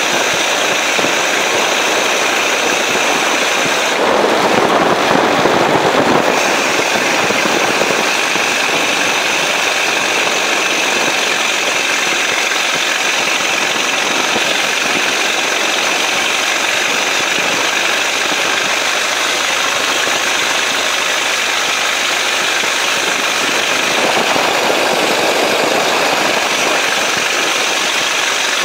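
A 1926 Ford Model T speedster's engine running at cruising speed on the move, with rattles and wind and tyre noise on wet pavement. The noise swells louder for a couple of seconds about four seconds in and again near the end.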